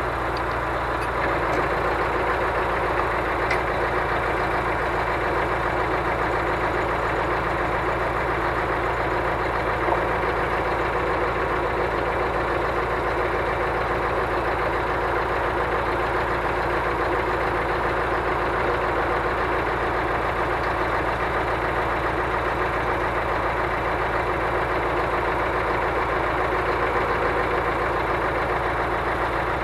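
Scania truck's diesel engine running steadily at idle while its truck-mounted knuckle-boom crane is worked, with a small click about ten seconds in.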